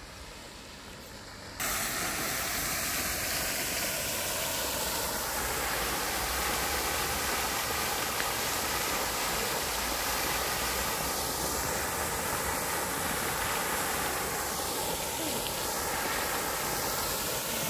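A tall fountain jet splashing down into its pond: a steady, loud hiss of falling water that starts suddenly a little under two seconds in.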